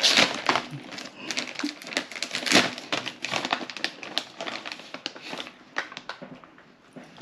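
Plastic packaging crinkling and rustling in irregular crackles as it is handled and pulled open.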